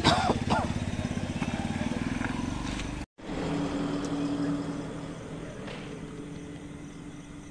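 Yamaha FZ motorcycle's single-cylinder engine running at idle with an even, fast firing beat. The sound cuts out for an instant about three seconds in, then the engine runs on more quietly.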